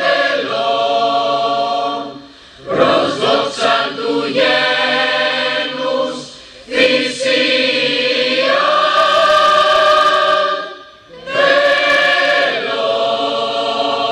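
Choir singing a slow song in Greek in long held notes, with short breaks about two and a half, six and a half and eleven seconds in.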